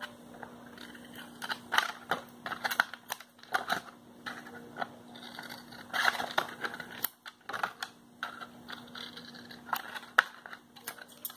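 Thin PET bottle plastic crackling and clicking as it is handled, in irregular sharp clicks over a faint steady hum.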